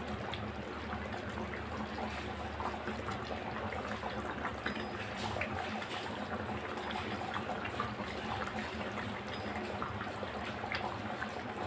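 Mutton intestine curry (kudal kulambu) simmering in a steel pan: a steady soft bubbling with many small pops, over a low hum.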